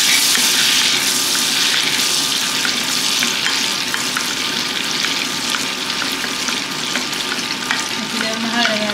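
Butter melting and sizzling in a hot stainless steel saucepan, stirred with a wooden spoon: a steady frying hiss with many fine crackles.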